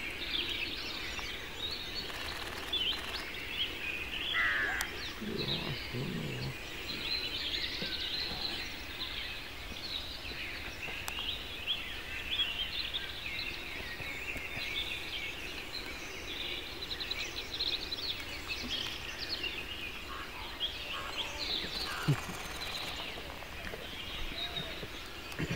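Woodland bird chorus: many small birds chirping and singing at once, with a few lower calls about five to six seconds in.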